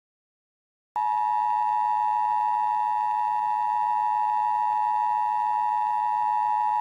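Emergency Alert System attention signal: the two-tone 853 and 960 Hz alert held steady for about six seconds, starting about a second in after a brief silence.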